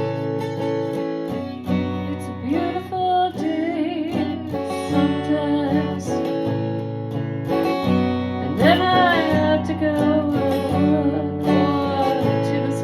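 Acoustic guitar strumming the introduction of a song, with a melody line sliding between notes over it twice.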